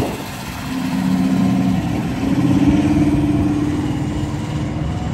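1969 Chevrolet Chevelle's engine accelerating as the car pulls away: a low, steady exhaust note that rises a little in pitch and grows loudest about two and a half seconds in, then fades as the car drives off.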